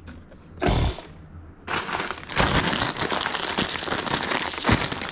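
A single thump a little under a second in, then, from about two seconds in, a plastic Funyuns snack-chip bag crinkling and crackling as it is handled and pulled open.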